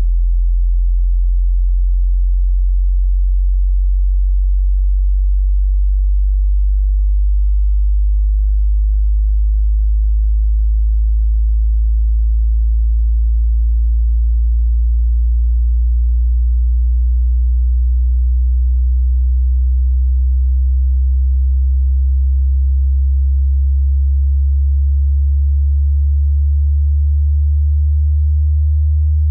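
Pure sine-wave test tone from a hearing-test frequency sweep: a single deep hum at steady loudness, rising slowly and smoothly in pitch through the low bass range.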